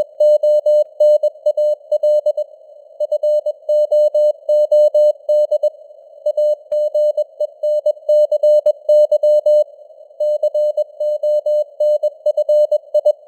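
Morse code news headlines sent at 21 words per minute: a steady mid-pitched CW tone keyed in dots and dashes, with short pauses between words. The tone sits in a faint hiss of simulated radio noise, and there are two faint clicks near the middle.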